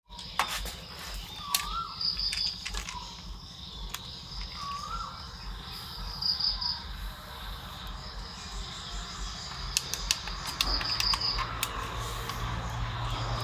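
Crickets chirping steadily in a high, pulsing trill, with a few sharp clicks scattered through.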